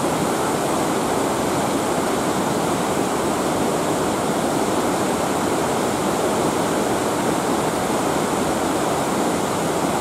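Large waterfall plunging over a cliff onto rocks: a loud, even, unbroken rush of falling water.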